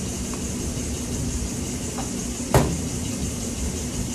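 Screwdriver working the breather off a Chevrolet engine's valve cover, with one sharp click about two and a half seconds in, over a steady background hum.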